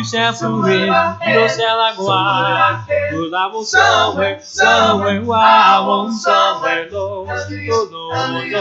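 Male gospel vocal quartet singing in close harmony, with a low bass voice under wavering, vibrato-laden upper parts.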